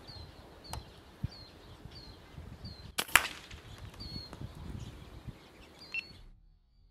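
A single shot from a Brocock Concept XR .25 PCP air rifle about three seconds in: a sharp crack followed closely by a second crack. Short, high sparrow chirps repeat about twice a second around it. All the sound cuts off abruptly about six seconds in.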